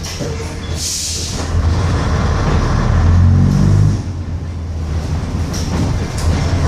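Bristol RELL6L bus engine pulling away and accelerating. It builds in pitch and loudness, drops suddenly about four seconds in at a gear change, then builds again. A short hiss comes about a second in.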